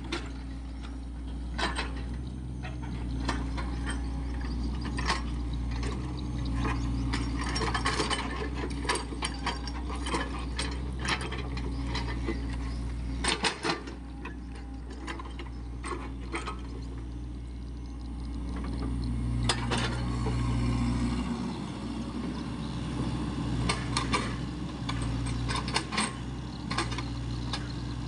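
SANY SY55C mini excavator's diesel engine running steadily, with repeated sharp metallic clanks and knocks from the bucket, boom linkage and steel tracks as it works in wet mud. The engine note rises under load for a couple of seconds about two-thirds of the way through.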